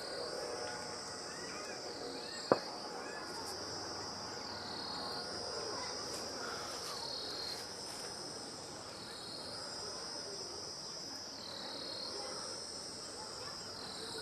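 Insect chorus: a steady high-pitched trilling that steps up and down in pitch every few seconds. A single sharp click comes about two and a half seconds in.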